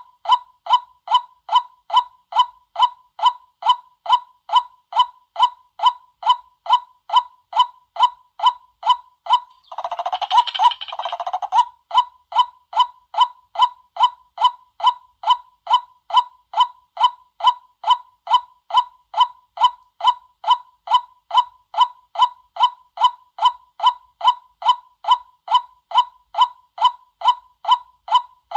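White-breasted waterhen call: a short 'kwak' note repeated evenly about twice a second, broken about ten seconds in by a brief, denser burst of calling.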